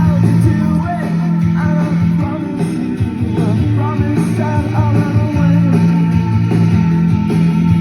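Rock song with singing and guitar played back on a Sony WM-FX199 Walkman.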